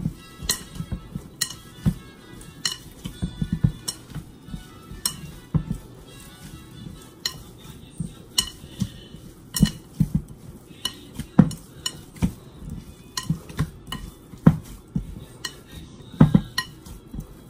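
Hands kneading sticky sour-cassava-starch (polvilho) dough in a glass bowl: irregular squishing and dull knocks of dough and knuckles against the glass, a few sharper taps among them.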